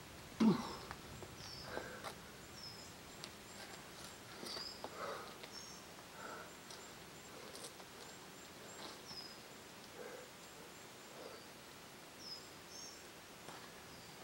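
A rock climber's effortful breathing, with one strong grunt about half a second in and short, sharp exhales through the rest. A small bird calls over and over with short, high, falling chirps.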